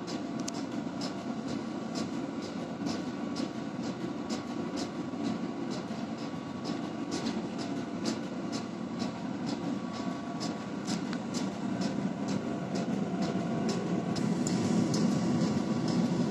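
Propane gas forge burning steadily with a low roar, with irregular sharp crackles a few times a second while a steel billet heats in its mouth; the roar grows a little louder near the end.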